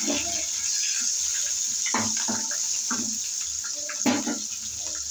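Hot oil sizzling steadily in a kadai as crushed garlic, green chillies and curry leaves fry with mustard seeds in a tempering (tadka). A few short, fainter sounds come in around the middle.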